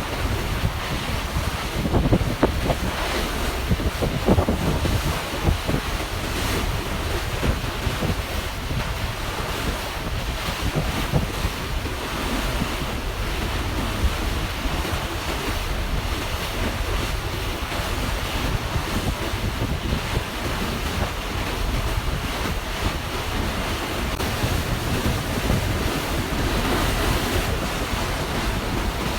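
Wind buffeting the microphone over water rushing past a moving ferry: a steady rushing noise that swells in small gusts.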